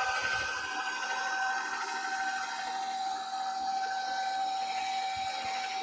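Electric stand mixer running with a pasta roller attachment, a steady motor whine, as a sheet of fresh pasta dough is fed through the rollers to thin it.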